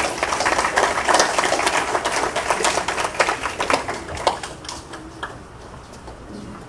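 Audience applauding, a dense patter of hand claps that dies away about five seconds in.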